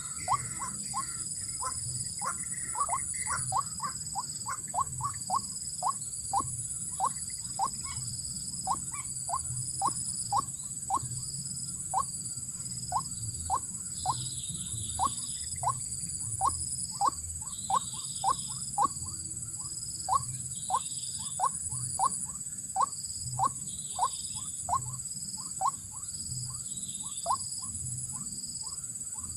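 White-breasted waterhen calling over and over, a short sharp note nearly twice a second. From about halfway, a higher call joins in about once a second, over a steady high-pitched hum.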